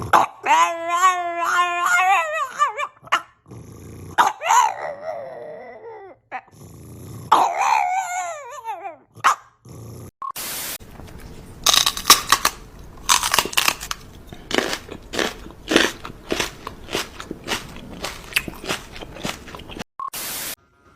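A dog whining and howling in wavering, up-and-down pitched calls, three times over about the first ten seconds. Then a run of irregular sharp clicks or taps.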